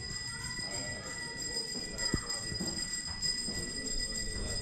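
A small hand-held puja bell rung continuously, a steady high ringing, with a single dull knock about two seconds in.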